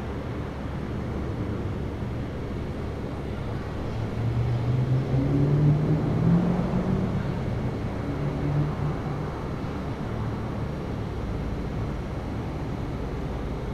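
Steady rumbling background noise, with an engine hum that rises in pitch and grows louder for a few seconds in the middle.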